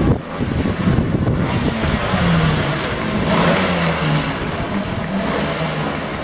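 250cc two-stroke Grand Prix racing motorcycle engines running and being blipped, with the pitch stepping up and down in short bursts over a wide noisy background.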